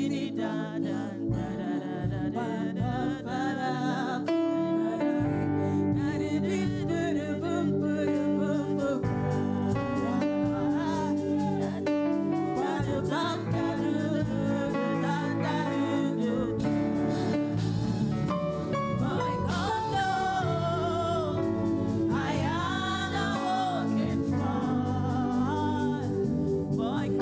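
Gospel praise music: singing voices over a band, a song carried on without a break.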